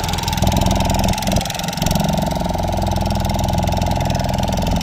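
A fishing boat's engine running steadily with an even, fast pulsing beat.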